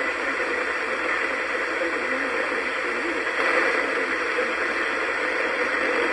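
Steady hiss of radio static from a receiver.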